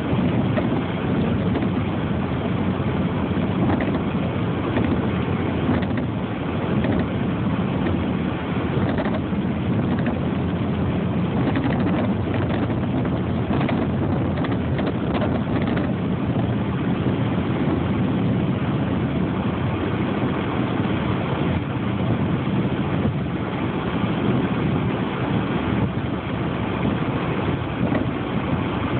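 Steady vehicle rumble of engine and road noise, unchanging throughout.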